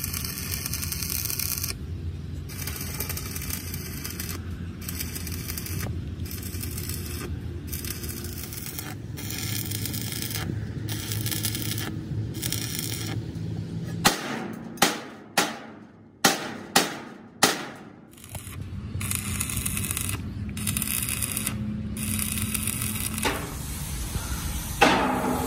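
Steel fabrication on a dumper body: repeated bursts of harsh noise about a second long with short pauses, then five sharp hammer blows on steel about fourteen seconds in, each ringing briefly before dying away.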